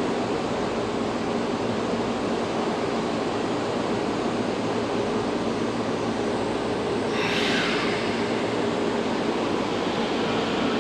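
Train running on the rails, an even rumble with faint steady low tones, and a short hiss about seven seconds in.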